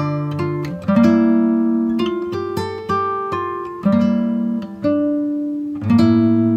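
Background music: acoustic guitar plucking chords, a new chord struck about once a second and left to ring.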